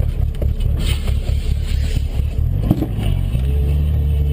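Steady low rumble of a car driving through snow on a highway, heard from inside the car, with a few light knocks. About three seconds in, a steady engine drone joins it.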